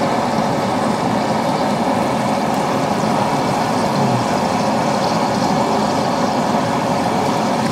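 Steady, even roar of a busy commercial kitchen, with no breaks or strikes, while a masala gravy cooks.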